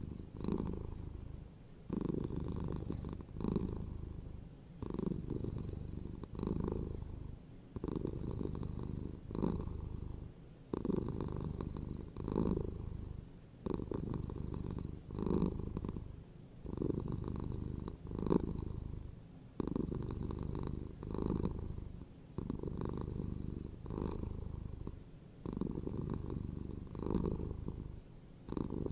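A domestic cat purring: a low rumble that swells and fades with each breath, about one breath every one and a half seconds.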